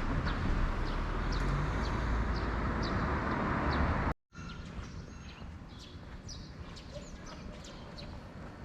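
Birds chirping over and over, short chirps about two a second, above a steady low rumble of vehicle noise. About four seconds in the sound cuts off abruptly. It comes back as quieter outdoor ambience with the birds still chirping.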